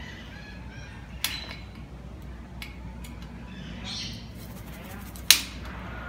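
Two sharp clicks from a white cockatoo's beak on the wire mesh of its aviary, about a second in and near the end, the second the louder. Faint chirping in the background.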